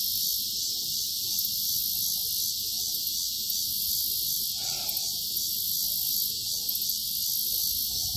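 A steady, high-pitched chorus of insects trilling, with a faint low rumble underneath and one brief soft sound about halfway through.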